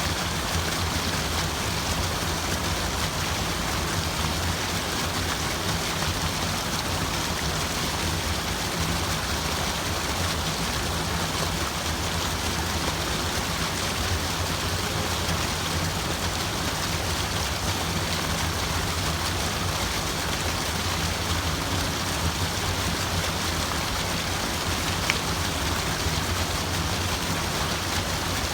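Water running and splashing without pause, an even rushing sound with a low rumble beneath it.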